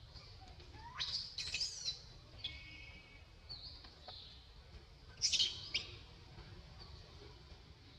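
Newborn macaque crying in shrill, high-pitched squeals that come in short bursts, one rising squeal about a second in and the loudest burst a little past five seconds in.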